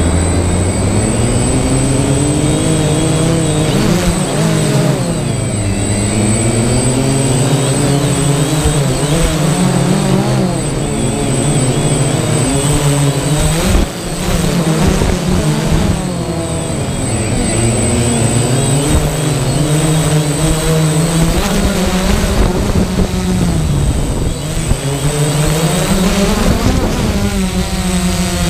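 DJI Phantom quadcopter's motors and propellers buzzing close to the on-board camera, the pitch rising and falling again and again as the drone manoeuvres, over a steady high whine.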